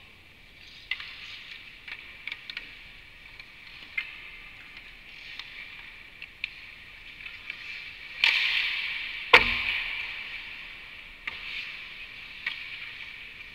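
Ice skates scraping and carving on rink ice, with scattered sharp clicks of hockey sticks on pucks. About eight seconds in comes a sudden loud scrape of skates stopping hard, and a second later a single heavy bang against the rink boards and glass.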